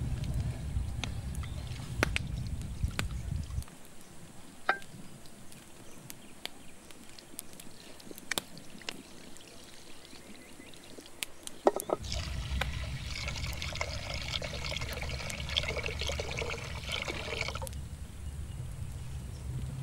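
Rice being rinsed by hand in a pot of water, with small clicks and splashes. After about twelve seconds comes a steady pour of water splashing for about six seconds, then it stops.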